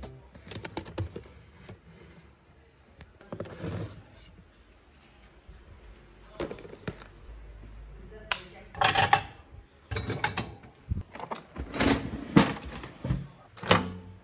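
Kitchen handling sounds: a few soft clicks and rustles at first, then a busier run of sharp knocks and clicks in the last six seconds as a wall switch is flicked and dishes are handled.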